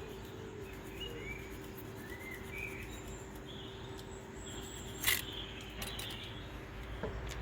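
Small birds chirping in the background over steady outdoor ambience, with one sharp click about five seconds in.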